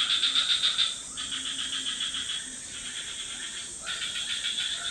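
Tropical forest chorus of insects and frogs: a steady high insect drone under rapid pulsing trills that start and stop in spells of a second or so.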